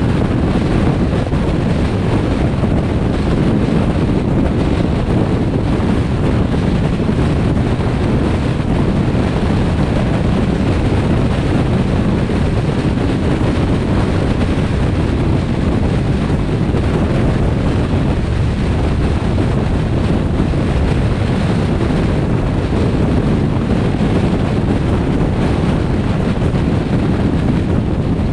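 Steady rushing wind noise on the microphone mixed with the road noise of a car driving at highway speed, deep and even, with no change throughout.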